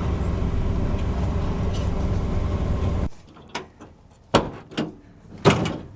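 A vehicle engine running steadily, which cuts off abruptly about halfway through. Then come four sharp knocks or clunks, the loudest near the end.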